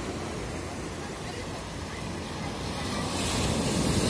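Sea surf washing onto a sandy beach: a steady rush of waves that swells louder about three seconds in as a wave breaks.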